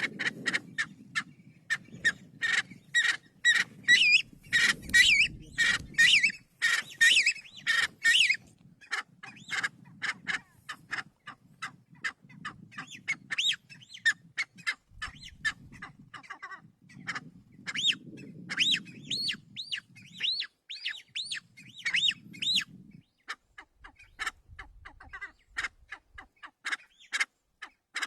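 Kalij pheasant calling: a long run of short, sharp clucking notes, about three or four a second, with high squealing whistles mixed in, thickest in the first third and again in the second half.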